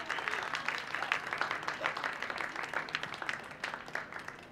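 Audience applauding, a dense patter of claps that thins out and fades toward the end.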